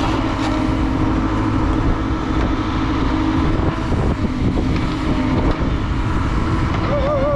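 Backhoe loader's diesel engine running steadily while its rear excavator bucket digs and lifts soil, with a wavering whine near the end.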